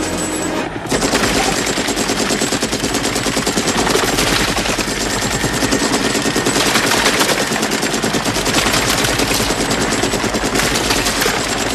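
Belt-fed M60 7.62 mm machine gun firing long, continuous automatic bursts from a helicopter door mount, starting about a second in.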